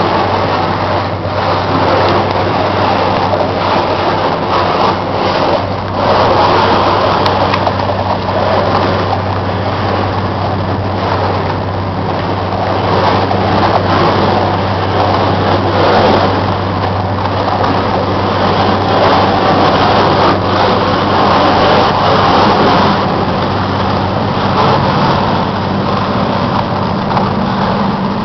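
A small fishing boat's inboard diesel engine running with a steady low hum as the boat works through broken sea ice, under a loud rough rushing noise.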